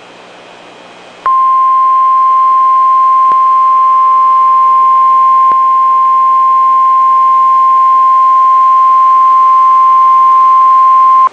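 NOAA Weather Radio warning alarm tone, a single steady high tone of about 1050 Hz. It comes in about a second in over faint radio hiss and holds unbroken for about ten seconds, the signal that a warning, here a severe thunderstorm warning, is about to be read.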